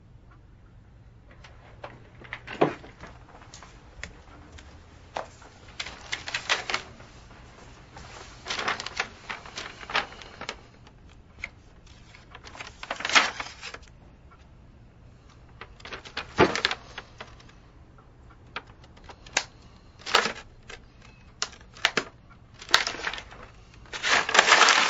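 Paper rustling and crinkling in short spells as folded paper notes are handled and opened, with scattered small crackles in between.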